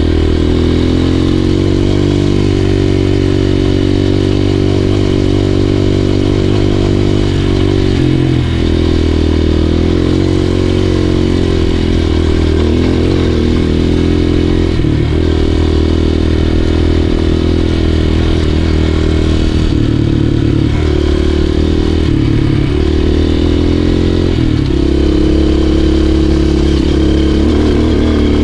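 Enduro dirt bike's engine running under way on a rocky trail, its pitch dipping and climbing again several times as the throttle changes.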